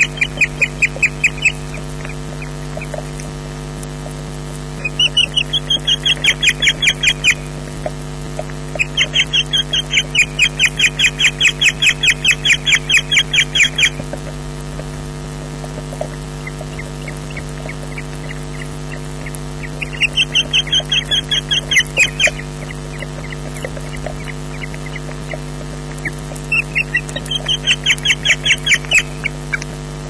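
Osprey fish-calling, the female's begging call to her mate for food: a fast series of short, piercing whistled notes, about five a second. The calls come in five bouts of two to five seconds with pauses between them, over a steady electrical hum from the nest camera.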